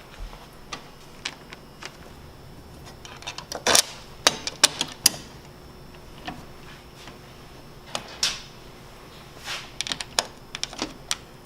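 Irregular clicks and clinks of bolts, spacers and bumper parts being handled and fitted by hand, with a quick run of sharper knocks about four seconds in.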